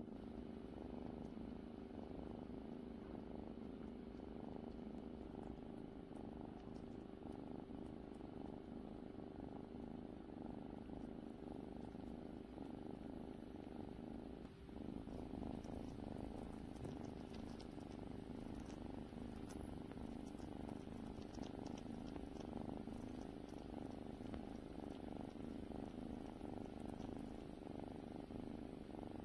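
Domestic cat purring steadily and continuously, with a brief break about halfway through.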